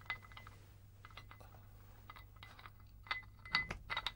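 Porcelain teacup clinking lightly against its metal saucer and stand as it is held out and taken: a few soft clinks near the start, then a quick cluster of louder clinks with a short ring about three seconds in.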